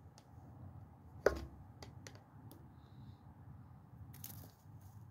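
Objects being handled on a shed workbench: a sharp knock about a second in, a few lighter clicks after it, and a short hiss near the end.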